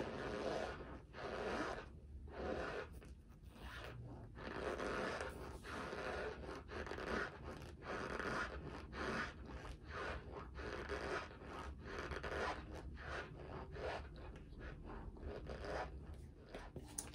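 Chewing a mouthful of dry Argo corn starch: an irregular run of short, scratchy crunching bites, roughly one or two a second.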